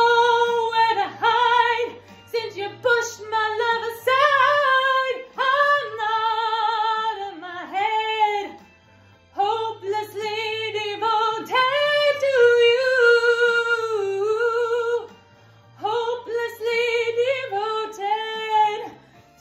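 A woman singing a slow ballad solo in long, wavering held notes over a soft accompaniment of low sustained notes, with two short breaks between phrases.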